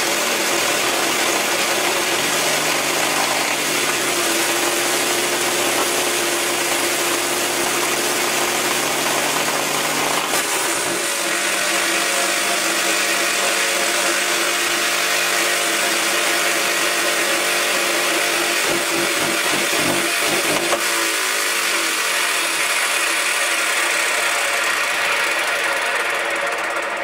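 Electric hover mower's motor and fan running at high speed: a loud, steady whine over a rushing noise, whose pitch pattern shifts about ten seconds in and again about twenty seconds in.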